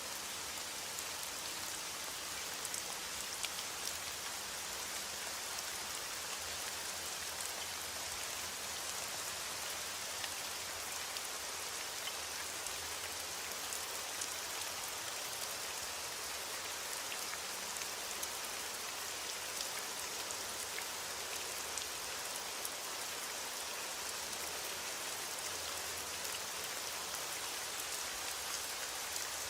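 Steady rain falling on a surface, a constant even hiss with many small scattered drop ticks.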